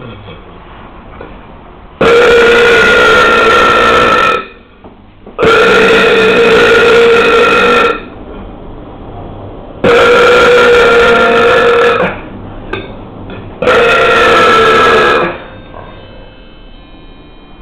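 A man belching four times in a row, each a long, loud burp of about two seconds held at a steady pitch, with short pauses between them.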